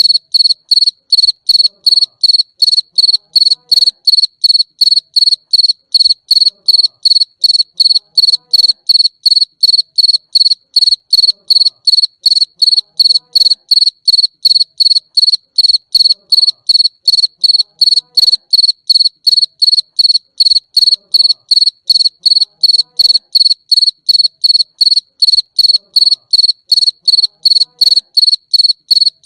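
Cricket chirping: a loud, high, pure-toned chirp repeated at an even rhythm, a little over two chirps a second.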